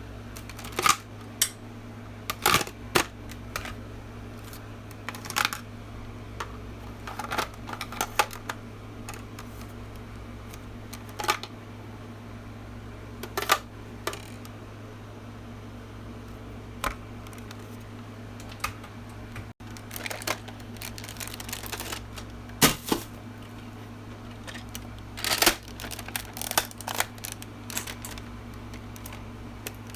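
Toy gun being handled and reloaded: irregular sharp clicks and clacks of its parts, coming thicker in the second half, over a steady low hum.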